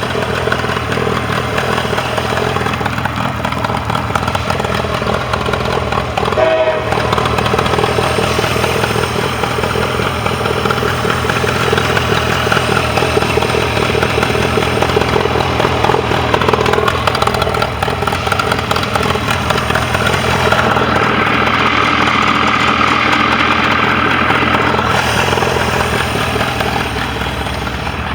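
Mercury 40 HP outboard motor running steadily.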